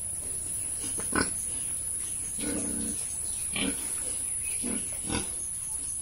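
Pigs grunting: several short, separate grunts, the longest about two and a half seconds in.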